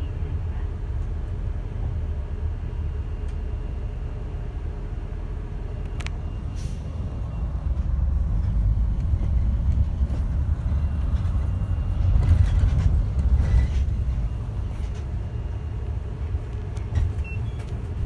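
Diesel route bus heard from inside the cabin: a steady low engine rumble that grows louder about eight seconds in. There is a sharp click about six seconds in and a brief rush of noise around twelve to fourteen seconds.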